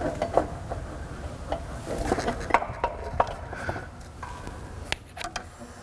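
Metal tools and car parts being handled, with a string of sharp clinks and knocks.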